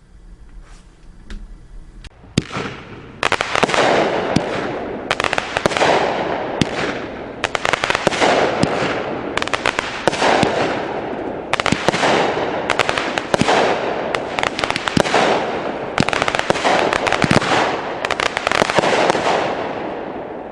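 Miracle Fireworks 'Daredevil', a 12-shot 200-gram consumer firework cake, firing its shots one after another, roughly one a second for about seventeen seconds, starting some two seconds in. Each shot is a sharp launch and break with crackling, loud, then it fades out near the end.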